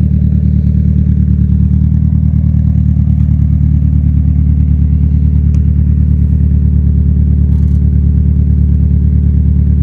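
Mazda MX-5 Miata's four-cylinder engine idling steadily through a newly welded exhaust.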